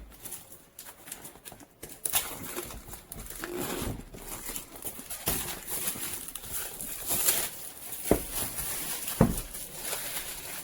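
Hands handling and unpacking the docking station's packaging: scratchy rustling and sliding, with a couple of sharp knocks near the end.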